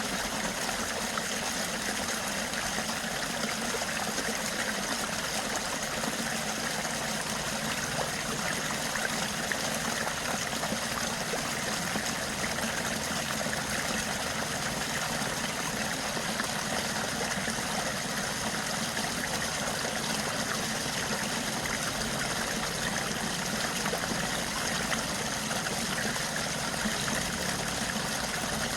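Stream water running and trickling steadily, an even rushing sound with no breaks.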